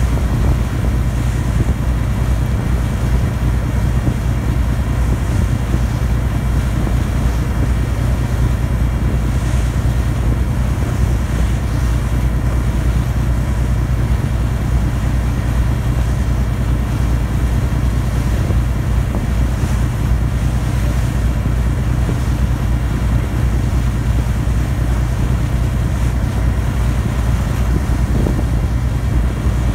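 Ferry's diesel engine running steadily under way, a low drone with a few faint steady tones above it. Wind buffets the microphone and water washes past the hull.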